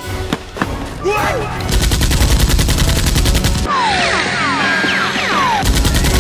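Dubbed-in automatic gunfire sound effect: a fast rattle of shots about two seconds in that lasts about two seconds, and another burst starting near the end. Between the bursts comes a flurry of high squeaky chirps, each falling in pitch, like cartoon creature squeals.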